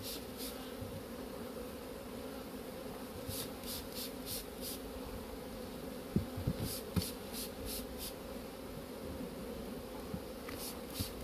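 Honeybees humming steadily in an open hive. A hand trigger spray bottle hisses over them in quick runs of four or five squirts, misting the frames with diluted sugar syrup so that bees from merged colonies accept each other. A few light wooden knocks sound around the middle.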